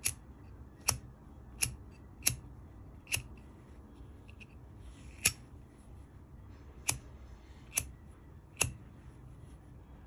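Japanese-made Zippo-style windproof lighter's hinged metal lid being flicked open and snapped shut over and over: about nine sharp metallic clicks, unevenly spaced, with a pause of about two seconds in the middle.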